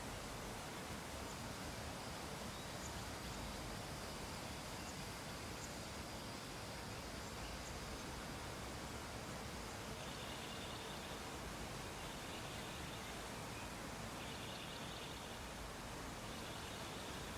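Steady low hiss of background noise. In the second half come faint, high chirping calls, each about a second long, repeating roughly every two seconds.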